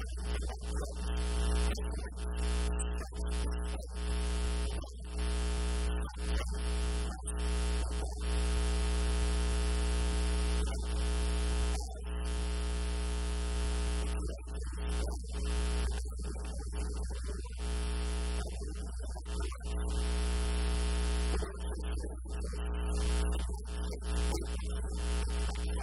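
Loud steady electrical mains hum and buzz, a low drone with many even overtones, dominating the recording.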